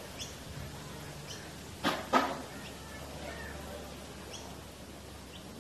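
Two sharp knocks about a quarter second apart, about two seconds in, over faint short bird chirps that come every second or so.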